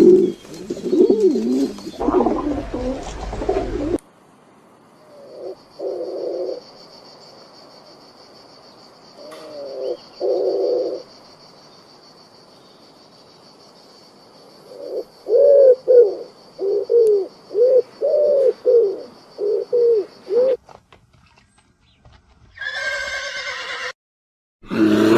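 Animal calls in short runs: a cluster of low calls, two brief bursts, then about ten quick calls in a row near the end. A faint steady high whine sits under the middle part.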